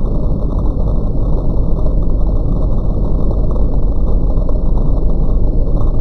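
Shark NZ801UKTSB upright vacuum cleaner running on carpet: a loud, steady motor and brush-roll noise as the floor head passes over spilled debris.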